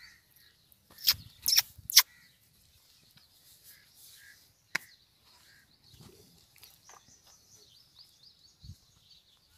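Faint birds chirping in the background, broken by a few sharp clicks or knocks: three close together about a second in and one more near the five-second mark.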